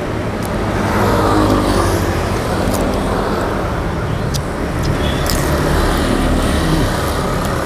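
Steady road traffic noise from vehicles driving on the street, with a few light clicks.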